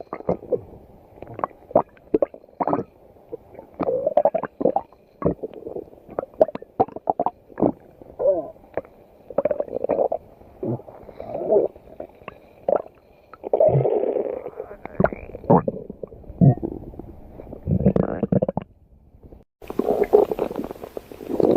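Stomach growling and gurgling: a long run of short gurgles and pops mixed with longer rumbling swells. After a brief pause about nineteen seconds in, it carries on with a hissier background.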